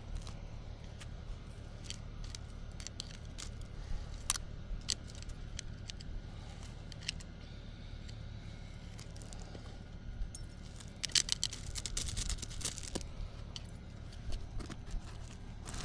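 Crackling and snapping of weeds and brush being handled and pulled by hand, in scattered sharp clicks, with a denser burst of crisp rustling a little past the middle.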